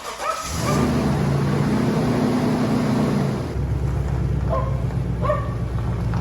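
Vehicle engine running with a steady, pitched hum. About three and a half seconds in, the sound changes abruptly to a lower, steadier hum.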